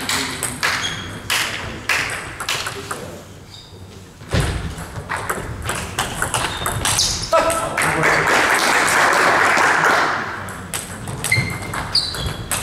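A table tennis ball clicking sharply off bats and table during a rally, in a reverberant sports hall, with one heavy low thump about four seconds in. After the point, a few seconds of dense noise mixed with voices.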